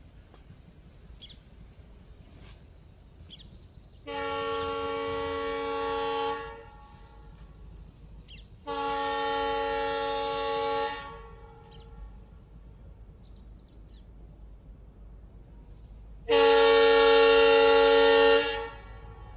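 Diesel locomotive's air horn sounding three long blasts of about two seconds each, the last one the loudest. A faint low rumble lies underneath.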